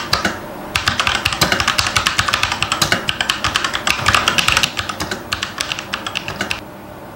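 Fast typing on a Fantech MK853 V2 full-size mechanical keyboard: a rapid, dense clatter of keystrokes with a brief break just after the start. The typing stops shortly before the end.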